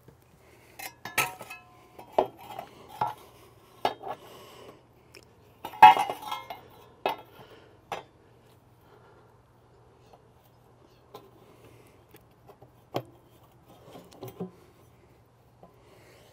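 The metal lower-door plate of a Komodo Kamado grill is slid and fitted back into its opening past the sliders: a series of metal-on-metal clinks, scrapes and knocks, loudest about six seconds in, thinning to a few light clicks in the second half.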